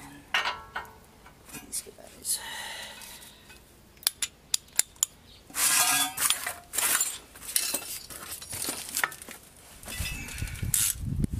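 Steel hand tools clinking and scraping as wrenches are handled and set down on the ground, with several sharp metallic taps and short rasping scrapes.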